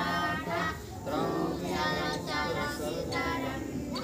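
A group of children and women singing together.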